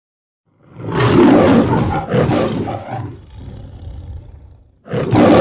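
Lion roar of the Metro-Goldwyn-Mayer logo intro: a long roar starting about half a second in and trailing off more quietly, then a second roar beginning near the end.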